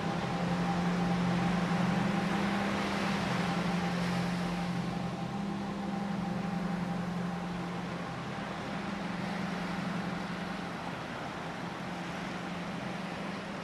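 Steady low electronic-sounding drone from an experimental sound-art piece, a deep hum with a hiss over it, slowly fading out.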